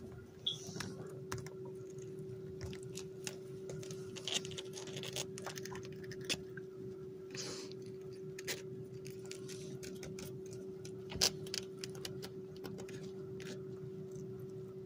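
Young kittens scuffling and nursing on a quilted blanket: scattered soft clicks and rustles, with one sharper click about eleven seconds in, over a steady hum.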